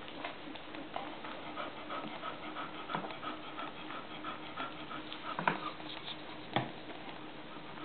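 Eleven-day-old golden retriever puppies with their mother: a string of faint, short, high squeaks over a steady low hum, broken by a few sharp knocks, the loudest about five and a half seconds in.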